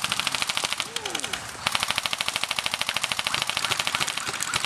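Airsoft electric rifle firing on full auto: a rapid, even rattle of shots, with a short break about a second in before a long continuous burst.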